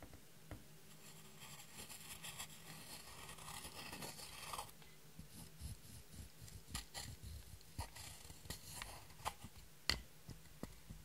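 A small metal-tipped tool scraping and crushing pressed eyeshadow in its palette. For a few seconds there is continuous scratchy scraping, then a run of small taps and clicks as the powder is broken up, the loudest click near the end.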